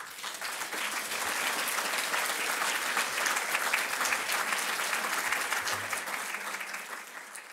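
An audience applauding, the clapping building within the first second, holding steady, and dying away near the end.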